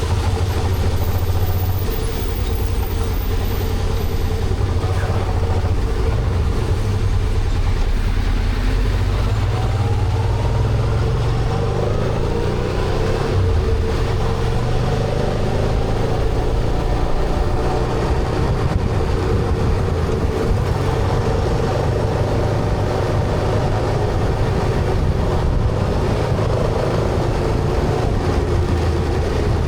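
Honda Transalp motorcycle riding at steady speed: the engine runs under a constant rumble of wind and road noise, with its pitch shifting a little about a third of the way in.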